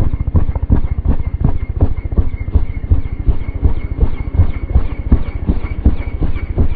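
Two-bladed helicopter hovering close overhead: loud, rapid, even rotor-blade chop with a steady high whine over it.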